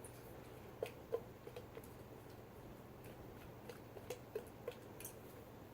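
Faint, scattered small ticks and squishes as thick shampoo is squeezed from a bottle into a bowl, the loudest clicks about a second in.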